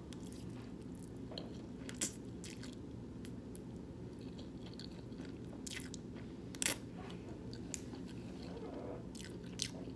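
Close-up chewing and mouth sounds of someone eating spaghetti and meatballs, with scattered short, sharp clicks and smacks, the loudest about two thirds of the way through, over a low steady hum.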